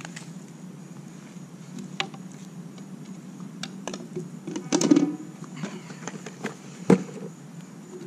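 Handling noises over a steady low hum: a few short knocks and a louder rustling clatter about five seconds in, as a person shifts on a towel and leans on the pool coping.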